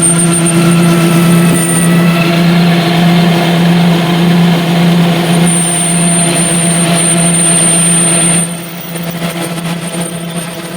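Lathe running with a steady hum and a thin high whine that comes and goes. About eight seconds in, the level drops sharply while the hum carries on.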